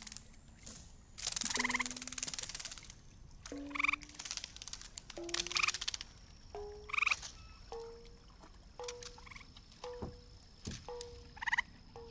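Sonic Kayak sonification playing sampled animal calls, frog-like croaks, over short electronic notes about one every second or so. The notes' pitch steps upward through the first half, then holds level. A thin steady high whistle comes in about halfway.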